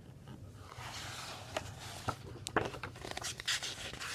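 A hand turning a paper page of a picture book. A soft rustle of the hand sliding over the paper starts about half a second in, and the page crinkles and crackles as it lifts and turns in the second half.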